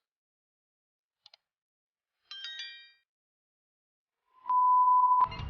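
A short electronic chime of several bright tones rings out and fades within about half a second. Near the end comes a loud, steady, single-pitch beep lasting under a second, with two faint clicks in the quiet before.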